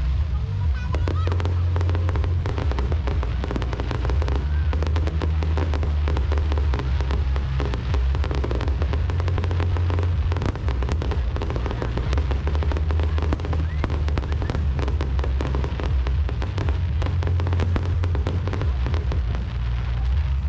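Fireworks display: rapid crackling and popping shell bursts over loud bass-heavy music that plays along with the show.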